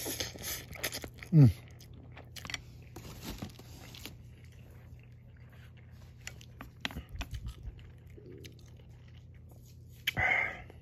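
A person chewing a mouthful of instant noodles close to the microphone, with scattered wet mouth smacks and clicks. A short falling hum comes about a second and a half in, and a brief louder sound near the end.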